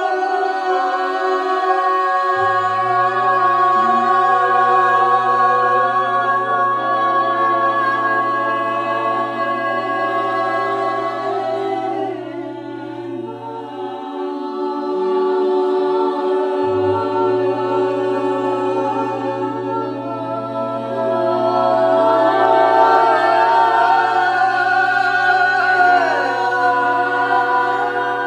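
Several voices singing long, held, overlapping tones together without instruments, a group toning improvisation in a sound circle. A low steady drone comes in about two seconds in, drops out around the middle and returns a few seconds later.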